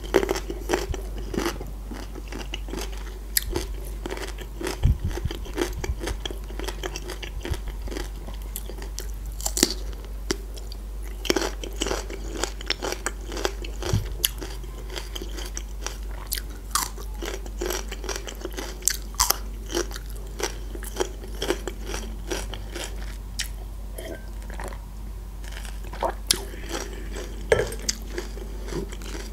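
Close-miked crunching and chewing of a raw green bell pepper slice, with many crisp bites and chews.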